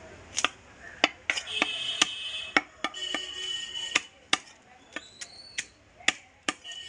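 Heavy broad-bladed knife chopping through small fish into a wooden log block: a quick, uneven run of about a dozen sharp chops. A high steady tone sounds in the background for a few seconds midway.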